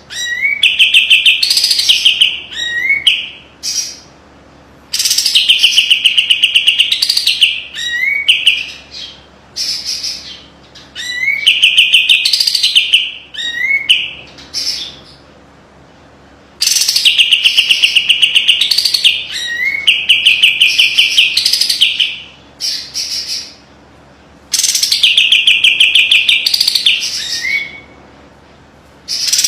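Kapas tembak songbird singing in repeated bouts of a few seconds: fast, rattling runs of many quick repeated notes mixed with upward-sliding whistled notes, separated by short pauses. This is the sharp, tight 'besetan' song used as a training recording for other birds.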